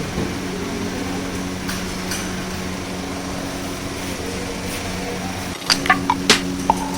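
Steady machine hum with a low, even tone, and a few sharp clicks and knocks about six seconds in.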